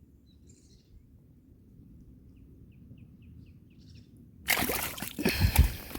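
Sudden loud splashing and thrashing of water about four and a half seconds in, lasting a second or two, as a large trahira is grabbed by hand in a shallow creek pool. Before it, faint bird chirps over quiet background.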